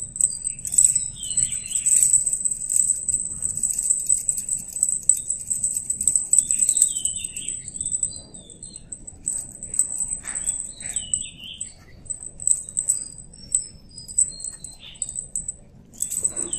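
A small jingle bell on a cat's wand toy jingling in quick shakes as a kitten bats at it. It stops and starts several times in the second half. Birds chirp in the background.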